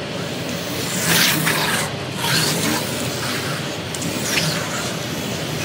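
Slot cars running on a large routed slot car track. Three passes near the camera, a little over a second apart, each a rush of high electric-motor whine that drops in pitch as the car goes by, over a steady scraping hiss of cars circulating.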